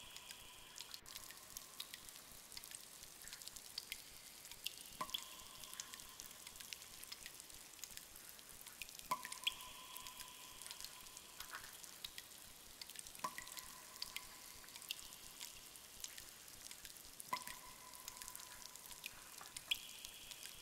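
Cave ambience: water dripping in a cave, with a louder drop that rings with a clear tone about every four seconds and many small drips and ticks between them.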